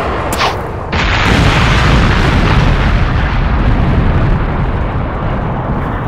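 Explosion sound effect: a short whoosh about half a second in, then a loud, sustained blast that holds for about five seconds.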